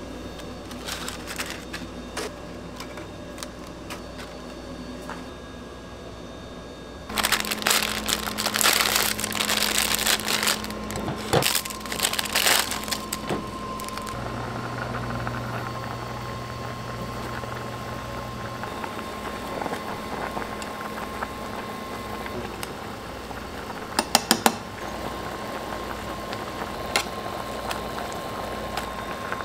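Plastic packaging crinkling loudly for several seconds as instant ramen packets are handled, followed by a steady low hum and a quick run of four sharp clicks amid kitchen noise.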